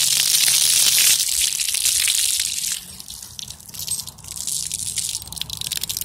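Splash-pad fountain jets spraying water that patters and splashes on wet concrete. The hiss is loud and full of fine droplet ticks, and it dips briefly about halfway through before coming back.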